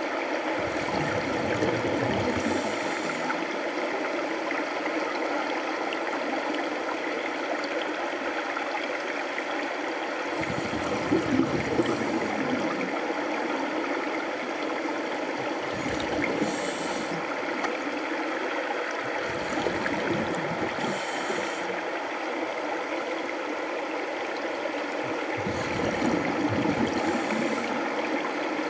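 Underwater recording in an aquarium tank: a steady rush of water, with scuba divers' exhaled bubbles gurgling up every several seconds.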